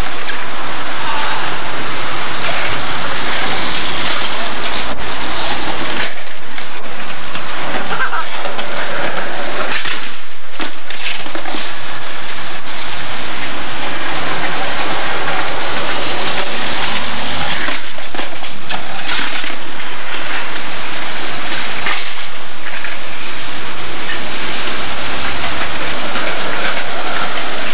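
Loud, steady rushing noise on old camcorder audio, broken by several sharp knocks of skateboards hitting concrete.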